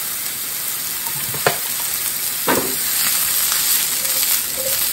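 Red bell pepper, king oyster mushroom and green chili strips sizzling in freshly added oil in a hot nonstick frying pan, with two sharp knocks about a second and a half and two and a half seconds in, and the vegetables tossed in the pan near the end.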